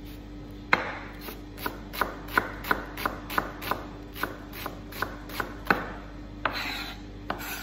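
Chef's knife dicing an onion on a plastic chopping board: a quick run of sharp knife strikes, about three a second, starting about a second in, with a short scrape near the end.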